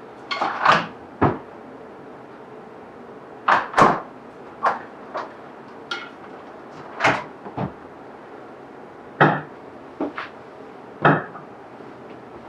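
Bosch French-door refrigerator doors being opened and closed, about ten short knocks and thuds at uneven intervals, as the doors are tried for clearance against the countertop beside them.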